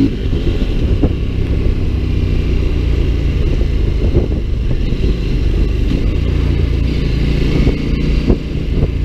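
CFMoto 800MT Explore's 799 cc parallel-twin engine running under way, heard from the rider's seat with road noise. The bike changes gear as it goes, up through the gears and then back down a gear, and the engine note shifts with each change.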